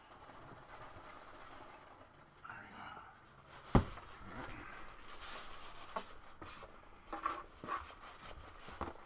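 Cardboard box being handled and rummaged through, with polystyrene packing peanuts rustling inside it. One sharp knock about four seconds in is the loudest sound, followed by repeated short rustles and crackles as hands dig through the peanuts.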